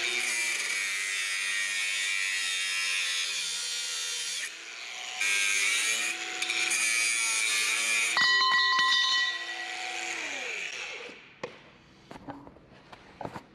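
Angle grinder with a Bosch metal-cutting disc grinding through a steel tube, with a harsh high whine, its pitch dipping briefly about four and a half seconds in before it bites again. About eight seconds in the sound turns to a cleaner ringing whine, then the motor winds down near the eleventh second, followed by a few light knocks.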